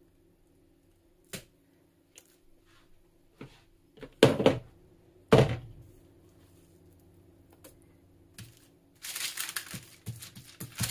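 Kitchen handling noise as dough is turned out of a mixing bowl onto parchment paper: a few faint knocks, then two loud thumps about four and five seconds in. Near the end, parchment paper rustles under hands pressing the dough flat.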